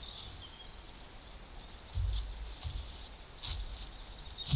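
Woodland ambience: small birds chirping in short, high-pitched repeated calls, with a low rumble coming and going twice.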